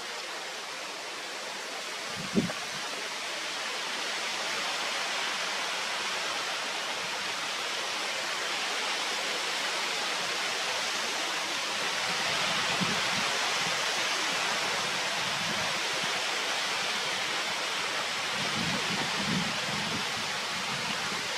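Steady outdoor rushing noise, even and unbroken, with one short knock about two and a half seconds in.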